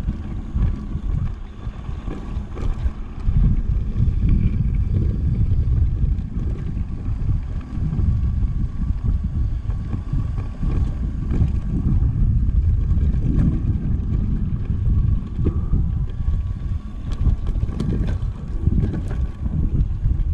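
Wind buffeting a GoPro microphone over a low rumble from a Scott Voltage electric mountain bike rolling down a rough dirt trail, with scattered knocks and rattles from bumps.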